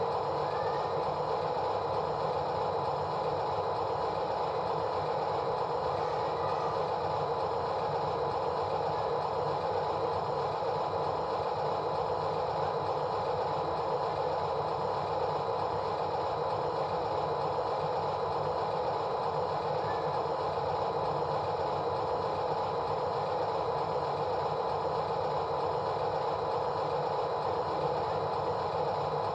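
A steady mechanical hum with several fixed tones, holding the same pitch and level throughout.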